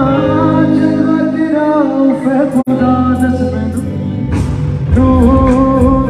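Live band playing a Punjabi pop song at a sound check, with a male singer on microphone over guitar, keyboards and drums. The sound breaks off for an instant about two and a half seconds in, then the song goes on.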